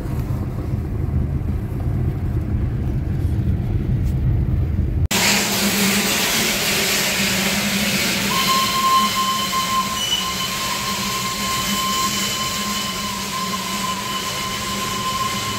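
Low rumble inside a moving car. Then, from about five seconds in, the Darjeeling Himalayan Railway toy train's steam locomotive passes close by with a loud hiss of steam. From about eight seconds in a long, steady high tone sounds over the hiss.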